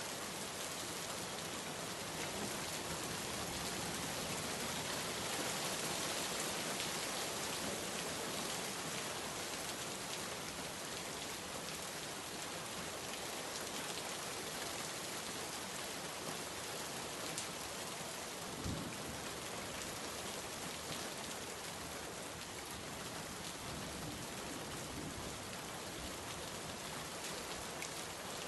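Steady rainfall: an even, unbroken hiss of rain, with a couple of single louder drop ticks about two-thirds of the way through.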